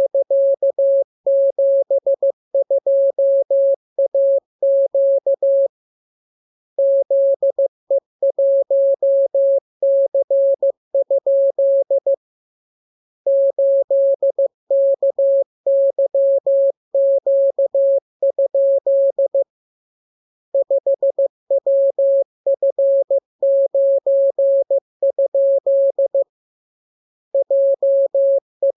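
Morse code practice tone: a single steady mid-pitched tone keyed on and off in dots and dashes, in runs of about six seconds broken by pauses of about a second.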